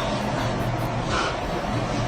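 A person snoring, a steady low rasping drone.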